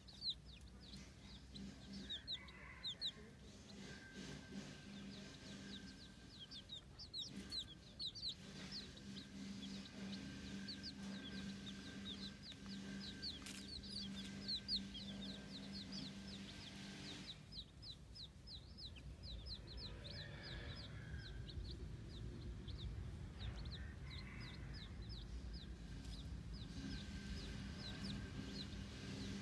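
Baby chicks peeping: a continuous stream of short, high chirps, each falling in pitch, several a second, over a steady low hum.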